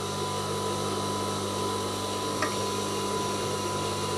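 Industrial sewing machine's motor running with a steady hum while the fabric is fed under the presser foot. A light click comes about two and a half seconds in.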